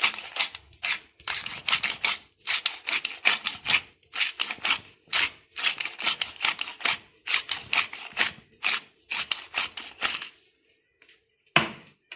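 Spice mill being twisted, grinding chili in quick gritty bursts about two or three a second, which stop about ten seconds in; a single knock follows near the end.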